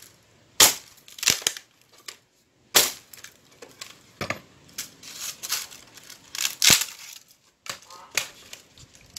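Axe chopping a dry branch on the ground: about half a dozen sharp cracking blows a second or two apart, with splintering crackle of the wood in between.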